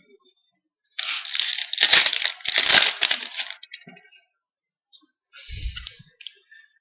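Trading cards and their foil pack wrapper being handled, rustling and crinkling for a couple of seconds, then a shorter rustle with a light knock near the end.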